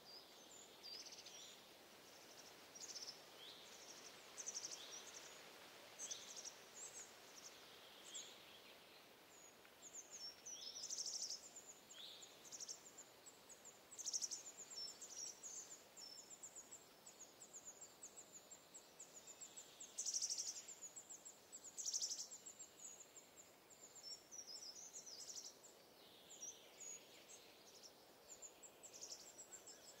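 Faint birdsong: many short, high chirps and trills from several birds, coming and going throughout, over a soft steady hiss of background ambience.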